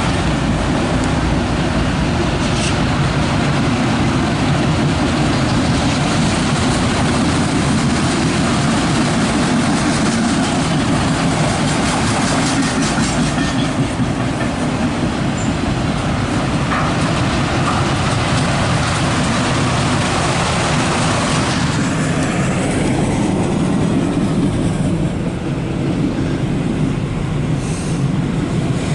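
Empty autorack freight train rolling past close by: a steady loud rumble and clatter of steel wheels on rail. The higher hiss eases off about two thirds of the way through.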